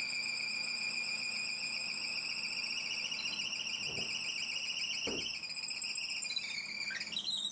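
Drill press boring into live oak, giving off a steady high-pitched squeal. Near the end the pitch dips and then climbs again.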